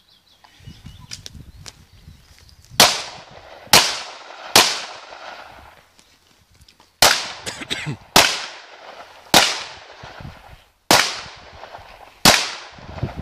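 Eight handgun shots: three in quick succession, a pause of about two seconds, then five more at a slower, even pace. Each shot rings off in a short echo.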